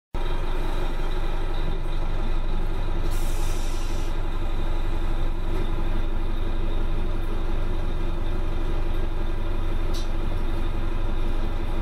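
Detroit Diesel Series 50 diesel engine of a 1995 New Flyer D40LF transit bus running steadily, with a low rumble and a constant hum. A hiss lasting about a second comes in about three seconds in, and there is a sharp click near the end.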